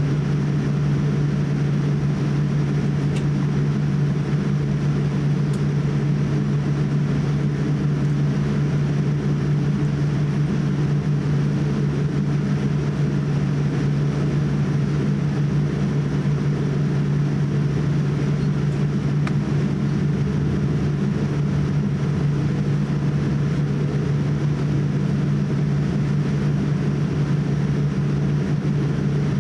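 Cabin noise inside a Boeing 787-8 airliner taxiing on its jet engines: a steady low hum with a hiss over it.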